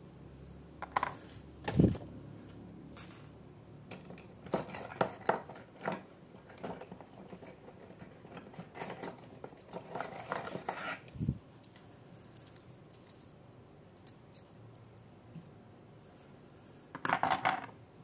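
Small metal parts and tools being handled during a diecast toy car wheel swap: scattered clinks and clatters, with a dull knock about two seconds in and a short clattering burst near the end.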